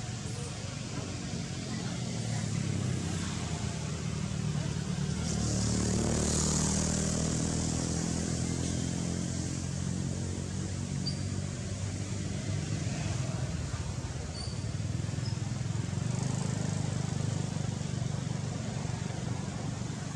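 Low rumble of motor-vehicle engines passing on a nearby road, swelling twice, about six seconds in and again about sixteen seconds in.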